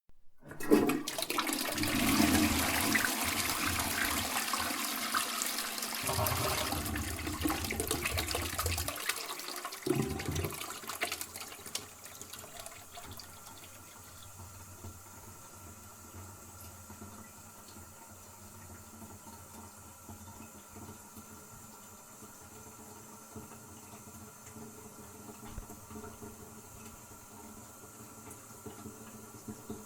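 Toilet flushing: a loud rush of water starts about half a second in and drains away over roughly ten seconds, then settles into a quieter steady hiss of the cistern refilling.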